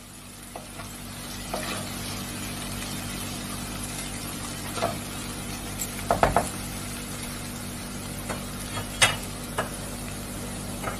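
Chopped mixed vegetables sizzling steadily in a little oil in a wok as they are sautéed to soften, with a spatula scraping and knocking against the pan every so often while stirring. The loudest scrapes come in a quick cluster about six seconds in.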